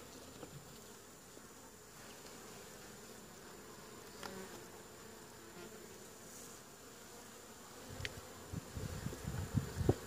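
Honeybees buzzing steadily around an open hive. Near the end, low wooden knocks as a hive frame is handled and set back into the box.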